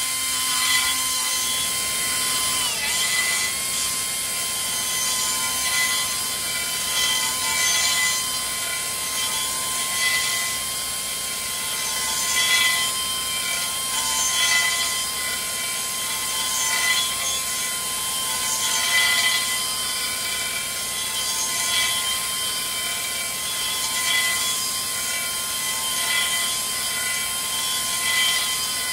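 High-speed die grinder whining steadily while a small sanding bit grinds round the inside of a control arm's ball joint bore, taking off powder coat to widen the hole for a larger ball joint. The grinding swells about every two seconds as the bit is worked round the hole, and the whine sags briefly under load about three seconds in.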